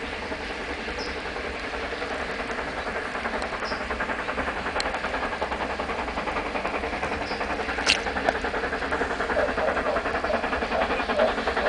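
Steam locomotive Ka 942, a New Zealand Railways Ka class 4-8-2, chuffing hard as it climbs a grade under load. Its exhaust beats come in a fast even rhythm that grows steadily louder as it approaches, with one sharp click about eight seconds in.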